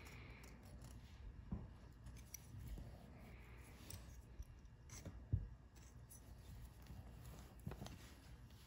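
Faint snips and soft clicks of a small cutting tool working through a deer's lip skin as the lips are split. The clearest click comes about five seconds in.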